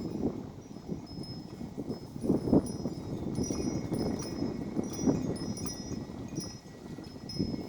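Strong, gusty wind rumbling over the microphone in surges, with wind chimes tinkling in many short, high, ringing notes.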